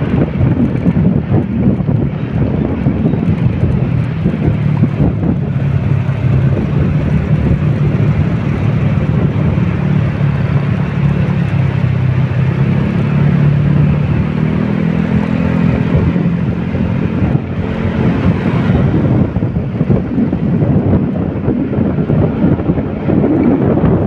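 A vehicle engine running under heavy wind noise on the microphone, its low note climbing and falling again around the middle.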